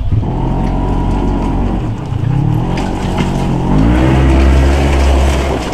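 Side-by-side UTV engine revving hard under load as it climbs a rocky hill. The pitch rises twice and is held at its highest and loudest about four to five seconds in, then drops off near the end.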